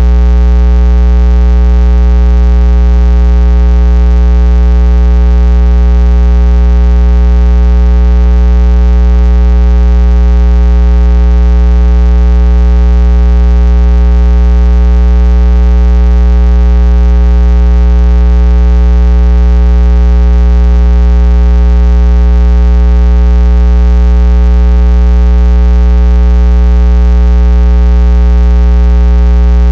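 Loud, steady electrical hum, deep with a stack of higher overtones, unchanging throughout.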